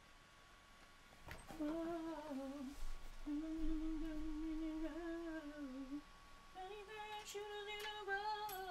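A man humming a tune to himself: a few held, wavering notes that begin about a second and a half in, with a short break near the middle. A couple of faint clicks are heard along with it.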